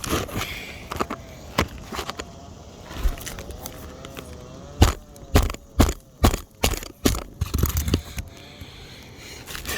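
Sharp knocks and cracks from working loose asphalt roof shingles: a few single clicks, then a quick run of about a dozen knocks in the middle.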